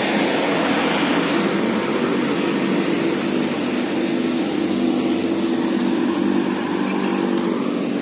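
Vehicle engine running amid street traffic noise, with a steady engine hum coming up about three seconds in and fading near the end.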